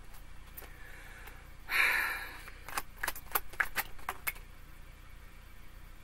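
Tarot cards being shuffled by hand: a short rush of sliding cards about two seconds in, then about eight quick sharp snaps and taps of cards over the next second and a half.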